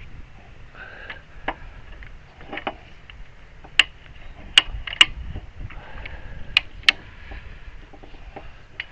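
Sharp mechanical clicks and knocks from a homemade bee-box lifting device being worked under load. The clicks come at irregular intervals, about eight of them, loudest around the middle.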